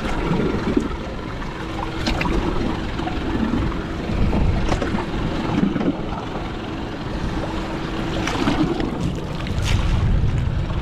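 Wind buffeting the microphone over the wash of choppy water around a small boat, with a faint steady hum through the middle and a few small knocks.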